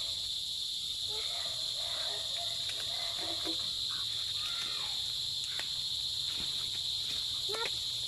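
Steady, high-pitched chorus of calling insects, an unbroken buzz that holds at one pitch and level throughout.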